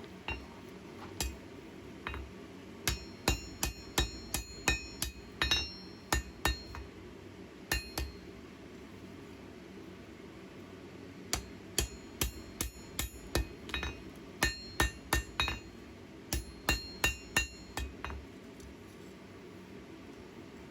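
Hand hammer striking knife steel on an anvil while forging a small skinner blade: two runs of sharp, ringing blows, about two a second, with a pause of a few seconds between them. A steady low hum runs underneath.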